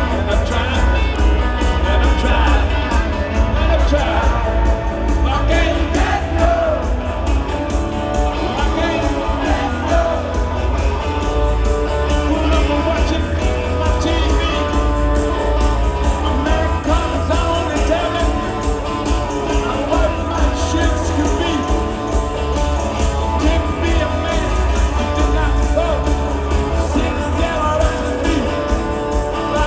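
Rock band playing live with a singer, amplified through a stadium sound system, with heavy, boomy bass.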